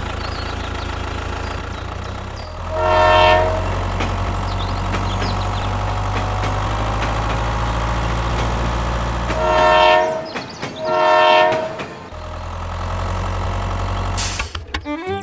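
A horn sounds three times, one blast about three seconds in and two close together near the end, over a steady low hum.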